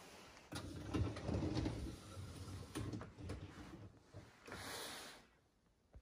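Beko DIN48534 dishwasher's racks being handled: a run of knocks and rattles from about half a second in, then a short sliding rasp near the end as a rack runs on its rails.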